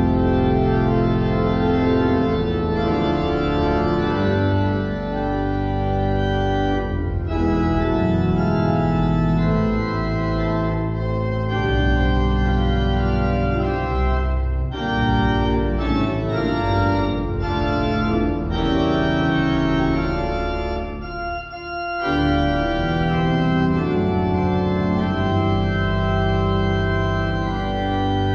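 Hybrid church organ, Physis digital voices from a Viscount Envoy 350 console combined with J. W. Walker pipework, playing sustained chords over a heavy pedal bass. The chords change every second or so, with a brief break in the sound about three-quarters of the way through.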